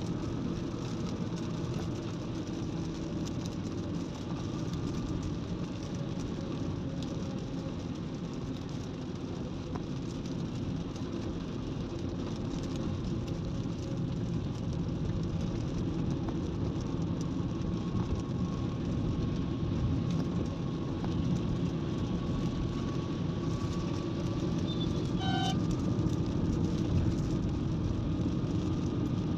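Steady road noise inside a car's cabin on a wet highway: tyre hiss on the wet road over a low engine hum, with a faint whine. A short faint tone sounds once near the end.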